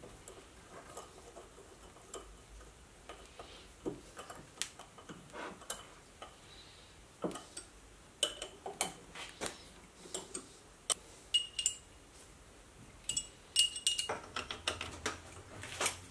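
Scattered small metal clicks and clinks as steel keys are screwed into the slot in the bottom of steel V-blocks with a hex key, growing busier in the second half, with a few taps ringing briefly.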